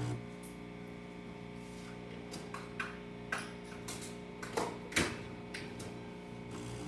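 An espresso machine's pump hum cuts off at the start, followed by a run of short clicks and knocks from the machine being handled, the sharpest about five seconds in, over a faint steady hum.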